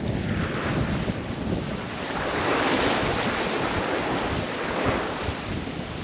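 Sea water rushing and splashing along the hull of a sailboat under way, with wind buffeting the microphone. The rush of water swells for a few seconds in the middle.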